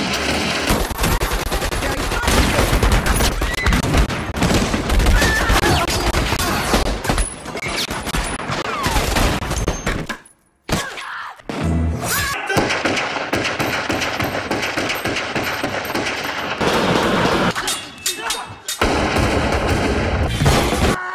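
Film gunfire cut together in quick succession: rapid volleys of gunshots over music. There is a sudden break to near silence about halfway through.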